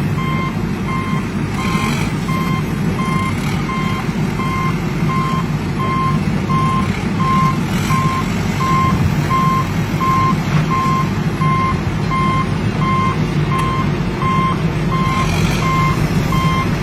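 Reversing beeper on a remote-control construction truck, beeping evenly at a little under two beeps a second over a steady low engine-like drone.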